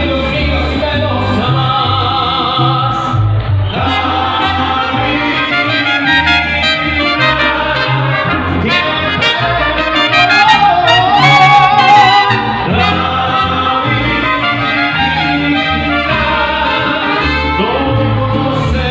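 Mariachi band playing live, trumpets over the ensemble with a singer, swelling loudest about two-thirds of the way through.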